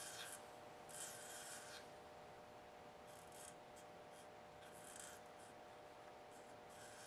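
Delta wood lathe running with a faint steady hum, with soft rubbing hisses about once a second against the spinning cherry-wood apple.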